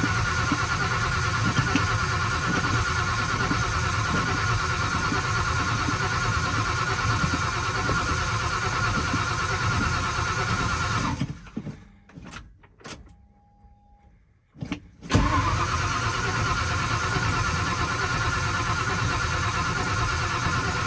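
A 1995 Ford F-150's 5.0 L (302) V8 cranking on the starter motor without firing, for about eleven seconds. After a pause of a few seconds with a short beep, it cranks again and still doesn't catch: a crank-no-start.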